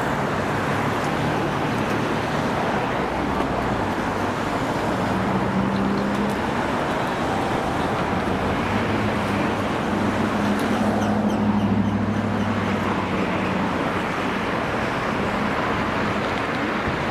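Steady road traffic noise, with a vehicle engine's low hum coming in about five seconds in, loudest around twelve seconds, then fading away.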